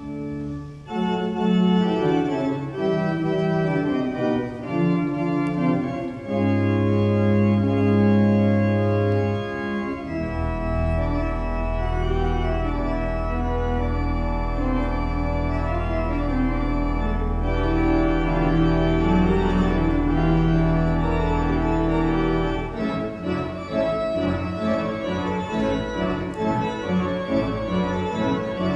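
Church pipe organ playing sustained chords, with a deep held pedal note from about ten seconds in until about six seconds before the end.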